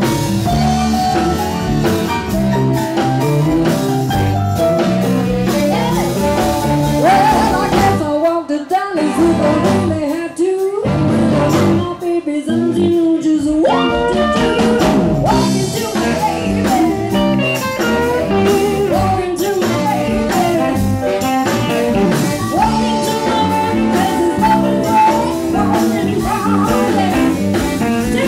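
Live blues band playing, with electric keyboard, electric guitar, bass and drum kit, and a woman singing into the microphone later on. About eight seconds in, the low end drops out for a few seconds before the full band comes back in.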